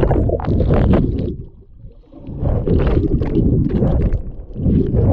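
Muffled water rumbling and churning on the microphone of a camera taken under water by a swimmer, coming in surges with a brief lull about two seconds in.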